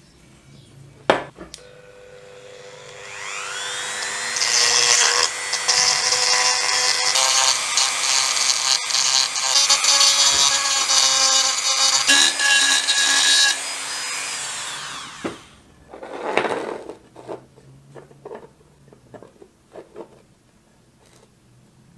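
Handheld rotary tool with a small burr: a click about a second in, then the motor spins up with a rising whine, runs loud while grinding the broken end of a metal lizard figure's tail, and winds down with a falling whine about fifteen seconds in. A few light handling sounds follow.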